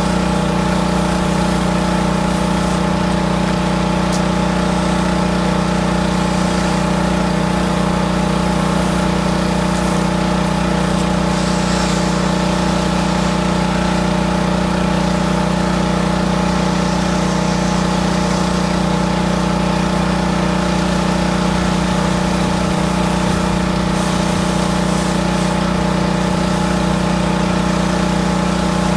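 Pressure washer engine running steadily at constant speed throughout, a strong even hum with no change in pitch, while the wand sprays water onto the house.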